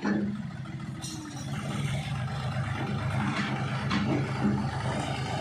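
John Deere 5310 tractor's diesel engine running steadily under load while its front dozer blade pushes loose soil.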